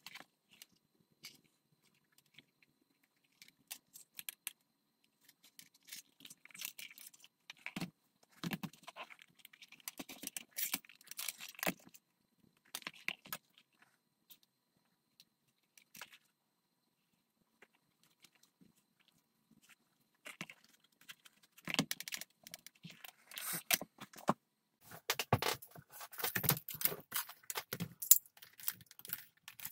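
Metal buckles and D-rings on leather straps clinking and jangling as they are handled, mixed with short rustles of leather and fur, in scattered bursts that get busier in the last third.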